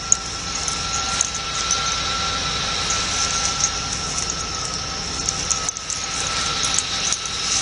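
Steady background noise with no speech: a constant low rumble and high hiss, with a faint unchanging whine beneath.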